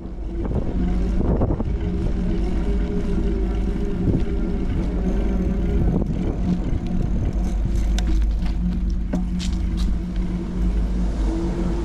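A steady engine-like hum with a strong low rumble, fading in at the start, with a few light clicks in the second half.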